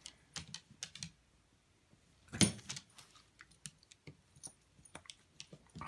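Scattered light clicks and taps, with one louder knock about two and a half seconds in.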